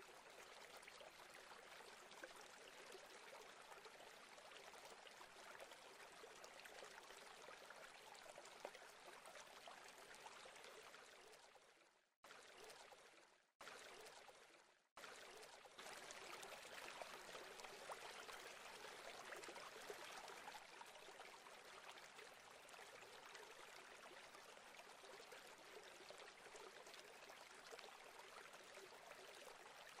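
Near silence: a faint, steady hiss like distant running water, briefly dropping out a few times around the middle.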